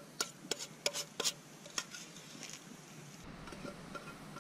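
A metal utensil clinking and scraping against a metal camp frying pan or pot, about half a dozen sharp ringing clinks in the first two seconds, then only faint scattered taps over a quiet steady hush.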